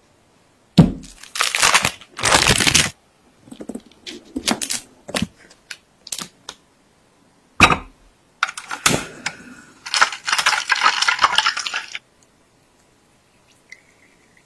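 Close-miked kitchen preparation sounds in separate edited takes: a knock about a second in, bursts of rustling and scraping, scattered light clicks of utensils on cookware, and a long crackly stretch that cuts off suddenly. Near the end, a faint trickle of melted butter being poured through a metal sieve.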